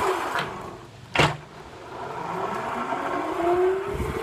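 Wind rushing over a phone microphone as the rider swings through the air. The rush dips about a second in, a sharp knock comes just after, then it builds again while a tone slowly rises in pitch.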